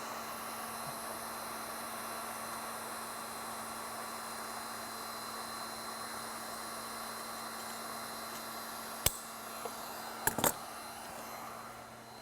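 Steady fan-like whir with a faint hum underneath. About nine seconds in there is a sharp click, then two more close together about a second later.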